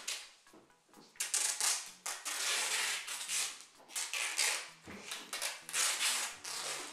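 Clear adhesive tape being pulled off the roll in a string of tearing rips, several strips one after another.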